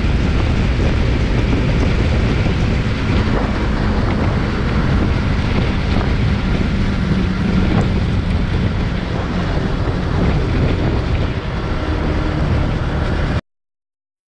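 Single-cylinder Bajaj motorcycle cruising at steady highway speed, its engine drone mixed with heavy wind rushing over the camera microphone. The sound cuts off suddenly near the end.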